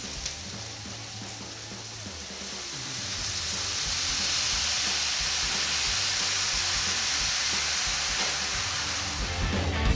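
Onion and garlic sizzling in oil in a frying pan as white wine is poured in. The sizzle swells about three seconds in and then holds steady.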